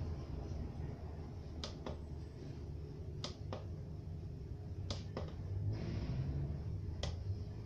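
Sharp clicks, mostly in close pairs about a quarter second apart, repeating roughly every one and a half seconds over a steady low hum, with a brief hiss about six seconds in.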